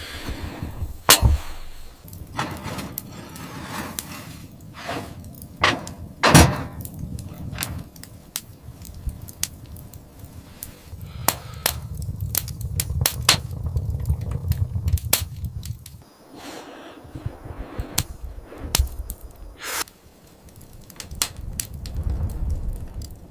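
An irregular series of sharp knocks and cracks, the loudest about a second in and about six seconds in, over a low rumble that swells in the middle and near the end.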